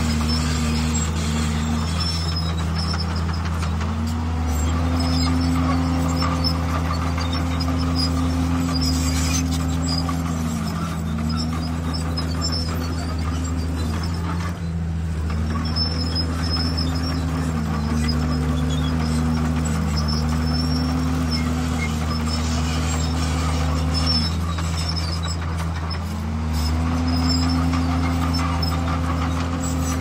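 Heavy diesel engine of earthmoving machinery running. It is a steady drone whose pitch rises and falls again every few seconds.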